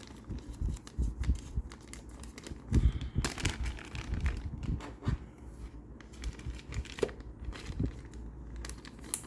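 Plastic wrapping crinkling and rustling, with light clicks and soft knocks, as board-game cards and pieces are handled and packed.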